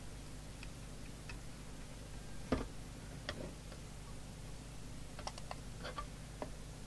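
Scattered light clicks and taps from handling test-probe clips and a handheld plastic Peak Atlas component analyser during a diode check, over a faint steady low hum. One louder knock comes about two and a half seconds in, and a quick run of clicks comes around five to six seconds in.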